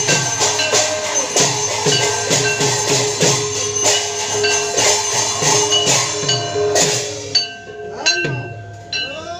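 Manipuri pung, a two-headed barrel drum, played in a fast rhythm, its bass strokes bending in pitch, over ringing metal percussion. The playing thins out about seven seconds in and stops after a last stroke near the end.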